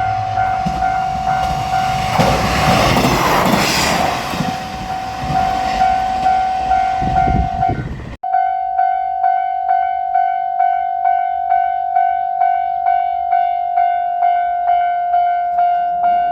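A Japanese railroad crossing bell rings steadily at about two strokes a second while a JR Shikoku 1000 series diesel railcar passes, its running noise loud through the first half. The train noise cuts off suddenly about eight seconds in, leaving the crossing bell alone.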